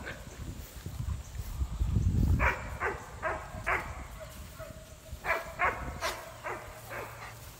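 Cane Corso puppy barking in short, high yaps: a run of four about two and a half seconds in, then another run of five or six near the end. A low rumble comes just before the first run.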